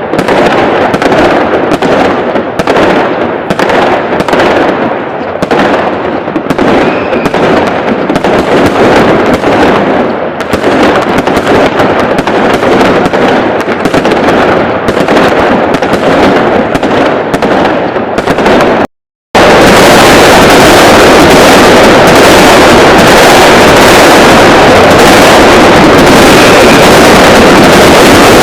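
Fireworks boosted to heavy clipping distortion: a dense, continuous barrage of bangs and crackles. About two-thirds through the sound drops out for a moment, then comes back as an unbroken wall of distorted noise.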